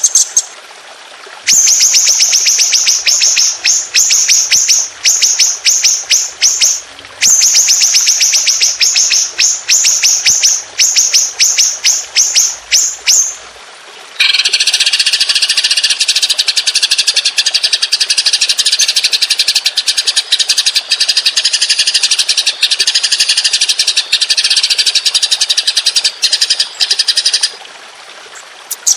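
Songbird song from a masteran training recording: a long string of sharp, high chirps repeated several times a second, then, about halfway through, a dense, unbroken high trill held for about thirteen seconds, the long roll prized in competition birds.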